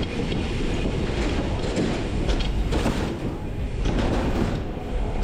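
Dirt jump bike being ridden over the jumps: tyres rolling and the bike's chain and frame rattling in a steady rumble, with a few thuds from the ride.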